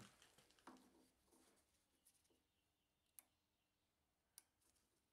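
Near silence with a few faint clicks and handling sounds as an outside micrometer is set against the freshly turned steel shaft; the sharpest two clicks come about three seconds in and just over four seconds in.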